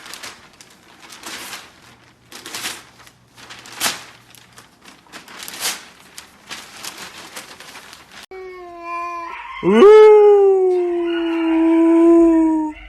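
A dog howling. A short call starts about eight seconds in, then a long howl swoops up in pitch and is held for about three seconds. Before that there are only faint scattered noises.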